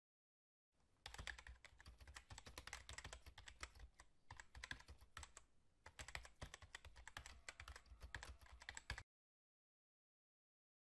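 Computer keyboard typing sound effect: rapid, dense key clicks that start about a second in, with a couple of short pauses, and cut off abruptly near the end.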